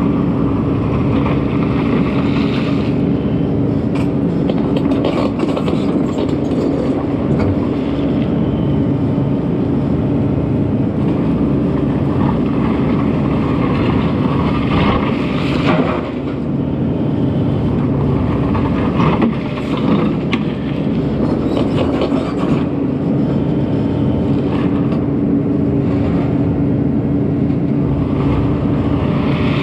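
Takeuchi TB2150 excavator's diesel engine running steadily at working speed, with occasional knocks.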